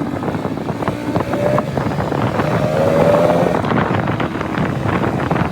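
Motorcycle engine running while riding, with wind buffeting the microphone. The engine note rises slightly about three seconds in.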